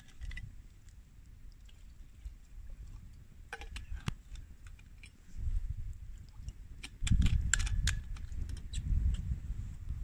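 Wind buffeting the microphone in gusts, swelling about five seconds in and strongest from about seven seconds in, with scattered light clicks and taps.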